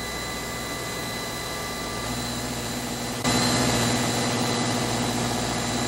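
Steady drone of running engine-room machinery with a few thin, steady whining tones; it jumps louder about three seconds in.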